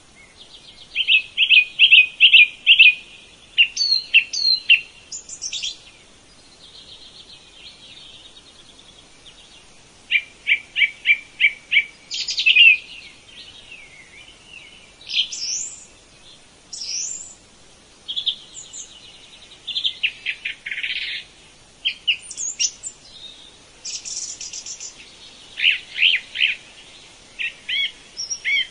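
Forest birds singing and calling: phrases of quick, high repeated notes and short whistles, several phrases in a row with pauses between them. A fainter buzzy trill fills some of the gaps.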